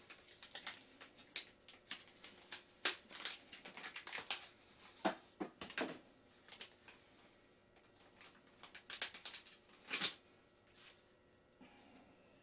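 Light, irregular clicks and taps of small plastic and metal parts being handled as a replacement flybar is fitted into the rotor head of a Madhawk 300 RC helicopter. The clicks come in a busy run over the first half and a few more about three-quarters through.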